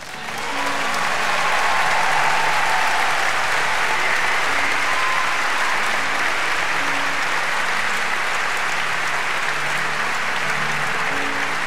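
Large concert-hall audience applauding, swelling over the first second or two and then holding steady.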